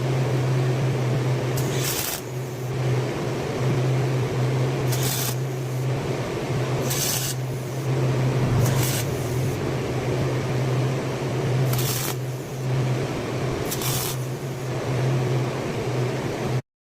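Power drill running steadily as it winds a steel cable tight around a fan frame, with several brief hissing scrapes every couple of seconds.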